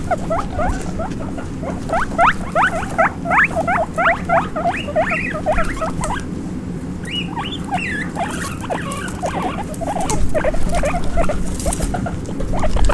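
Baby guinea pigs squeaking: quick runs of short rising squeaks, several a second, with a brief pause about six seconds in before they start again.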